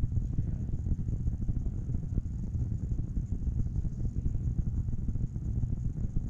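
Steady low rumble of background room noise, with a faint steady high whine above it.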